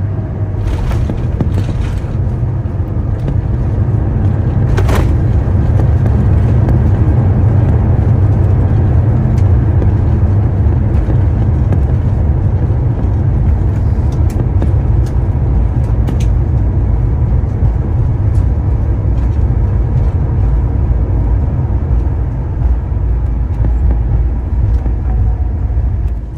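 Jet airliner cabin noise: a loud, steady low rumble that swells over the first few seconds and then holds, with a few faint clicks early on.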